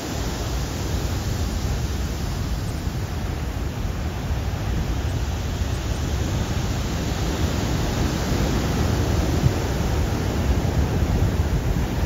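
Large ocean waves breaking and washing in: a steady rush of noise, heaviest in the low end, growing slightly louder toward the end.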